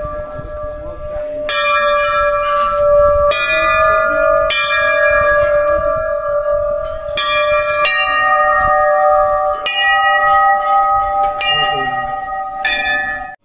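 Hanging brass temple bells rung by hand one after another: about eight strikes at several different pitches, each ringing on and overlapping the next.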